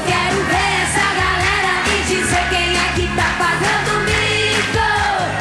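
Upbeat pop song with a woman singing over a steady beat.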